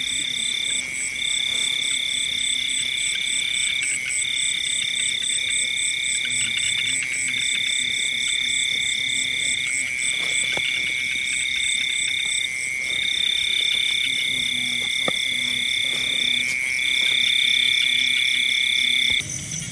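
Night chorus of frogs and insects: a steady shrill drone, a higher call repeated in phrases of one to two seconds, a fast ticking pulse above it and low croaks. It cuts off suddenly near the end.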